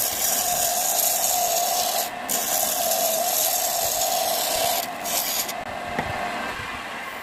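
A hand chisel scraping and cutting an acacia blank spinning on a wood lathe: a dense, hissing rasp over the lathe's steady hum, broken briefly twice as the tool comes off the wood. About five and a half seconds in the cutting stops, and the hum dies away as the lathe spins down.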